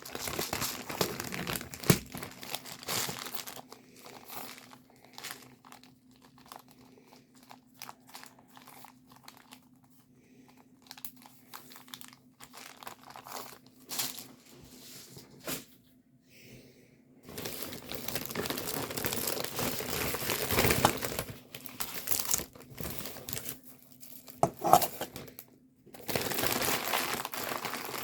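Plastic packaging crinkling and tearing as it is handled and opened, in louder stretches near the start, in the middle of the second half and near the end, with scattered small clicks and rustles between.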